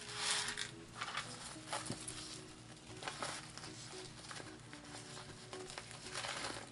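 Small dyed abalone shell pieces rattling and clinking as they are handled in a plastic tub, in a few short bursts, the loudest at the start.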